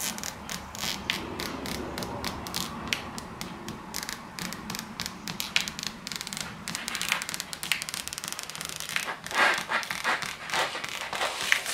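Backing liner being peeled off the double-sided adhesive tape of a windshield moulding, making an irregular run of small crackling ticks as the adhesive releases, busier toward the end.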